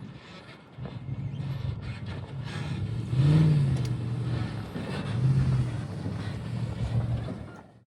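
Off-road race vehicle engine revving as it goes by, its note rising and falling with loudest surges about three and five seconds in; the sound cuts off abruptly near the end.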